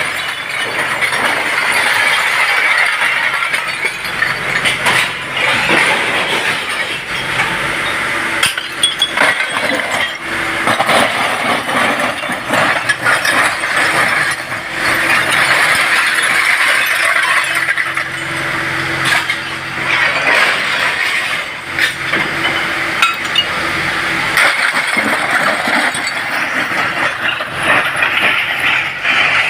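Bulldozer at work, a continuous heavy clanking and clinking of metal and stone, broken by many sharp knocks.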